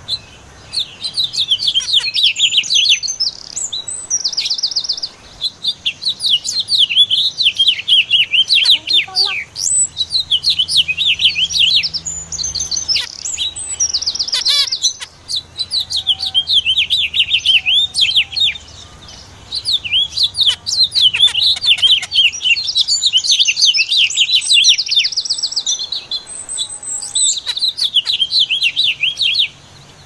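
Small finches chirping and twittering rapidly, many short high calls and trills overlapping, with brief lulls every several seconds.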